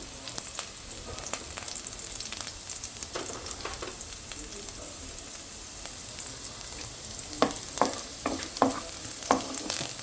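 Food sizzling in hot oil in a pan after Schezwan sauce has gone in, with a steady hiss. It is being stirred with a spatula that knocks and scrapes against the pan, several sharp knocks in the last few seconds.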